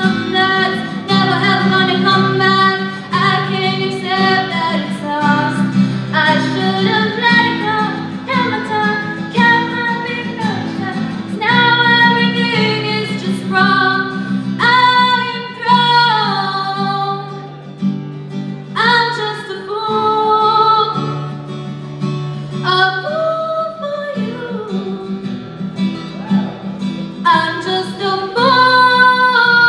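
A young woman singing a song into a microphone, accompanied by a strummed acoustic guitar.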